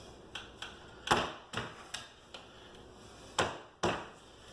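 Irregular sharp knocks and clicks of a wooden chair and tools being handled, about eight in all, the loudest about a second in and two more strong ones near the end. No drill motor is running.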